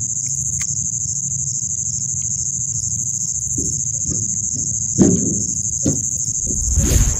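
A steady high-pitched chorus of crickets, with a low hum underneath. A thump sounds about five seconds in, and a brief rustle comes near the end.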